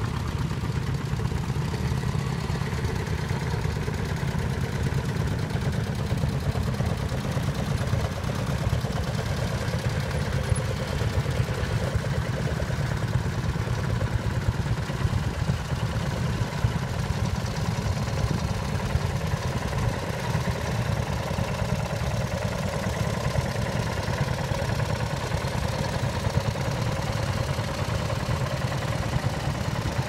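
The engine of a vintage two-wheeled walking tractor running steadily as it pulls a plough, with a low, rapid, even beat.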